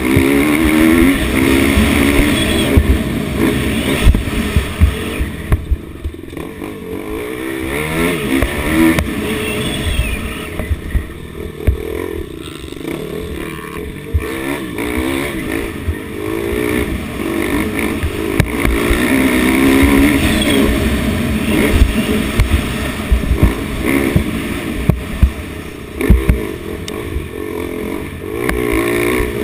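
Dirt bike engine at full throttle, its pitch rising and falling again and again as the rider rides the throttle and shifts through the gears, with frequent short thumps as the bike hits the track's bumps.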